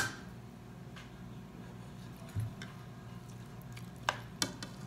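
Light clicks of a metal fork and spoon against a ceramic plate, two close together near the end, with a soft thump about halfway, over a low steady hum.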